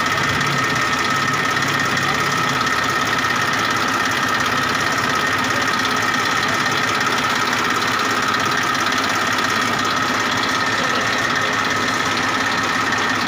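Massey Ferguson 1035 DI tractor's three-cylinder diesel engine idling steadily.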